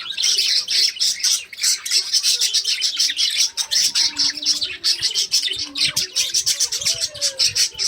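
Several small parrots chattering together in a dense, unbroken stream of rapid, high-pitched chirps and squeaks.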